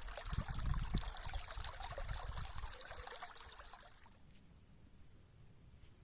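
Water trickling and splashing, as in a small mountain stream, with a low rumble underneath; it cuts off suddenly about four seconds in, leaving a faint hush.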